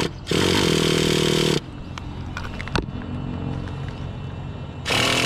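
Small nitro engine of a Traxxas Revo 3.3 being spun over by an electric starter box in two bursts of about a second and a half, one near the start and one near the end, on its first start of the day during break-in.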